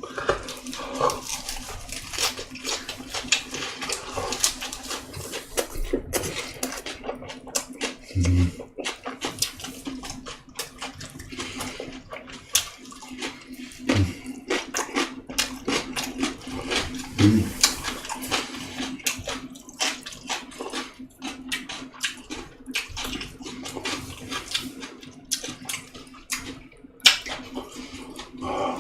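Close-miked wet chewing and lip-smacking of someone eating boiled pork and fermented skate, a dense run of irregular small smacks and clicks, with a faint steady hum underneath.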